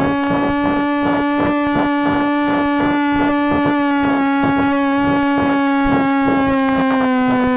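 Emergency Alert System-style alarm: a loud, buzzy synthesized tone pulsing quickly and evenly. It holds its pitch, then sinks slowly in the second half.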